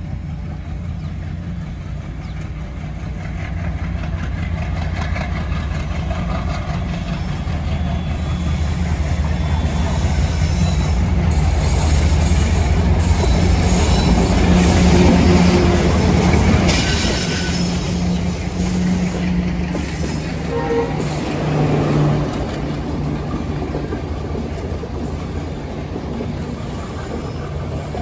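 Twin ALCO WDG3A diesel locomotives hauling an express approach and pass close by. Their 16-cylinder diesel engines build up and are loudest as the locomotives go by about halfway through. The passenger coaches then rumble past on the rails.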